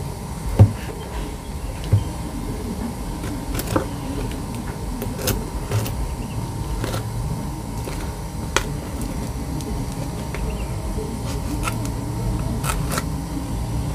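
Knife cutting through packing tape and plastic wrap on a cardboard parcel, with scattered sharp clicks and scrapes as the box is handled and turned, over a steady low hum.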